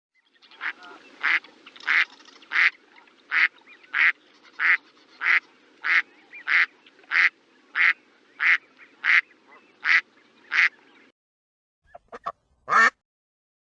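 A duck quacking: about sixteen evenly spaced quacks, roughly three every two seconds, over a faint low background noise. After a short pause, a quick cluster of quacks comes near the end, the last one the loudest.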